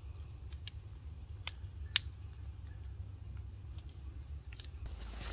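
A few sparse, sharp clicks and ticks, the loudest about two seconds in, over a faint low rumble.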